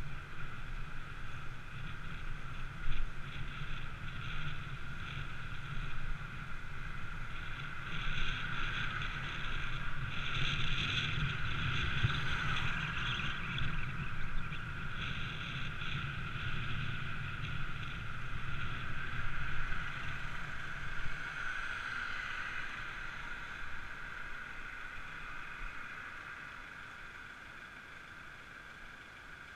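Wind rumbling on the microphone with road noise while riding. The rumble dies about two-thirds of the way through and the remaining noise fades as the rider slows to a stop.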